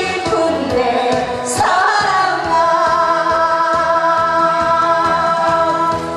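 A woman singing into a microphone over amplified backing music with a steady beat; she holds one long note from about two seconds in.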